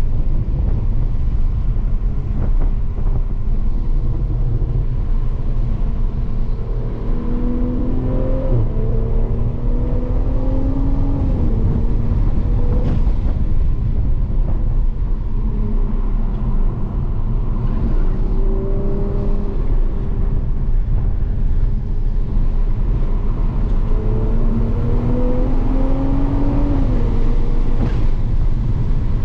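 Toyota Supra driven hard on a racetrack, heard from inside the cabin: a heavy constant low rumble, with the engine note rising under acceleration twice, about a third of the way in and again near the end, each time dropping off suddenly.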